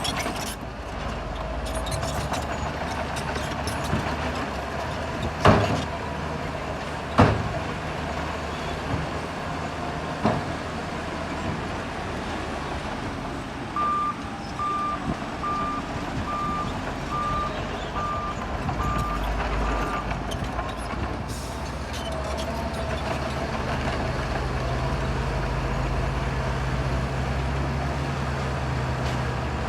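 Shantui bulldozer's diesel engine running steadily, with three loud knocks in the first third. A backup alarm then sounds eight evenly spaced beeps, about one a second, as the machine reverses. The engine works harder near the end, with a deeper, stronger hum.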